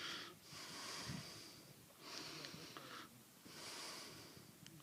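A hiker breathing hard and evenly close to the microphone: about four breaths, each a drawn-out hiss, coming roughly every second and a bit.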